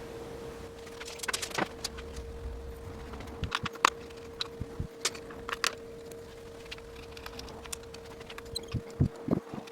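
Scattered light clicks and small metallic taps of bike parts and hand tools being handled during reassembly, over a faint steady hum.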